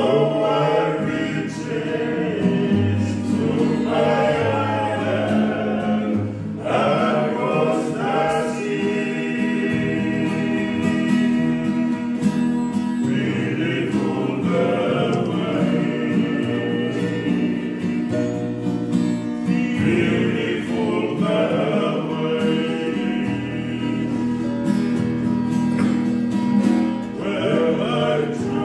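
Men singing a song together to strummed acoustic guitars.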